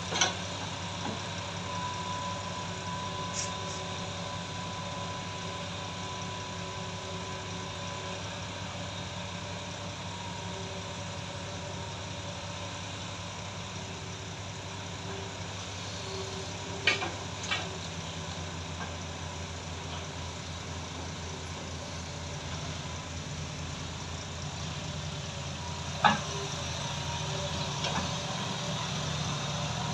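Hydraulic excavator's diesel engine running steadily as it digs and loads soil into a dump truck, with a few short sharp knocks at the start, twice around the middle and once more later. A thin steady whine sits over the engine for the first several seconds.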